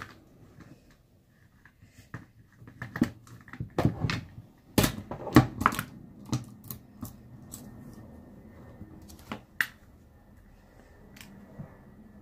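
Irregular plastic and metal clicks and knocks from the bar, chain and plastic side cover of a cordless chainsaw being handled and fitted together by hand during assembly, loudest about four to six seconds in.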